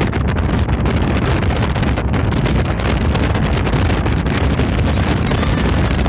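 Wind buffeting the microphone while riding in the open bed of a moving pickup truck, a loud steady rush heaviest in the low end, mixed with road noise from the vehicle.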